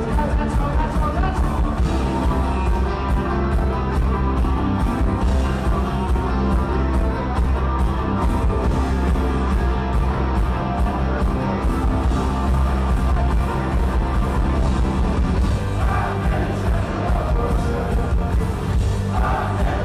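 Punk rock band playing live, heard through the venue's PA from among the crowd: electric guitar, bass, drums and keyboards together, with a steady drum beat.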